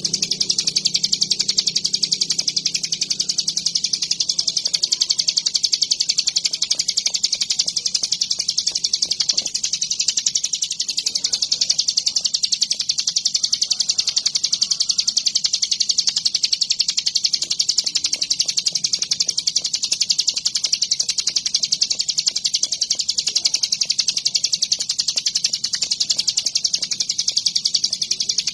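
Ciblek gunung, a mountain prinia, singing without a pause: a high-pitched, very rapid chatter of repeated notes, kept up steadily throughout.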